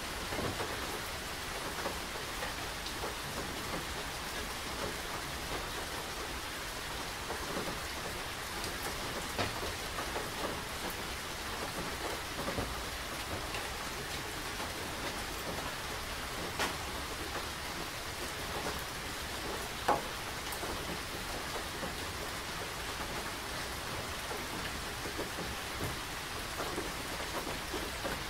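Steady rain falling, an even hiss, with a few sharper drops landing as clicks now and then, the loudest about two-thirds of the way through.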